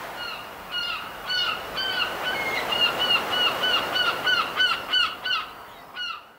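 Birds calling: a fast series of short, repeated calls, about three a second, over a steady hiss. The calls thin out near the end.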